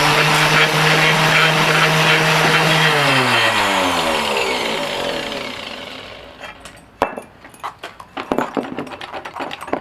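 Mighty Mill hammer-mill ore crusher running loud, shredding a piece of plastic electronic connector, then switched off about three seconds in and coasting down, its hum falling in pitch and fading out over the next few seconds. Light clicks and rattles near the end.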